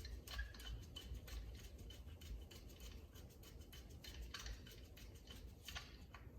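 Faint, rapid scratchy clicks of a Honda Goldwing carburetor's top cap being screwed down on its threads.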